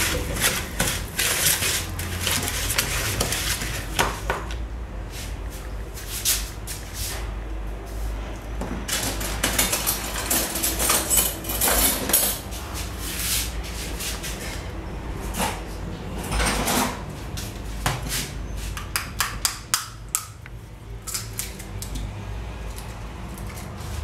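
Wooden spoon beating margarine and sugar in a plastic mixing bowl: irregular knocks and scrapes of the spoon against the bowl.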